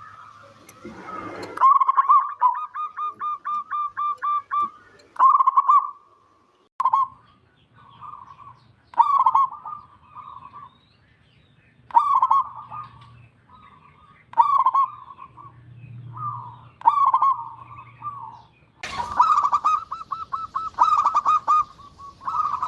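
Zebra dove (perkutut) cooing. It gives a quick run of repeated staccato notes, then a string of short coo phrases about a second apart, and a louder fast run near the end.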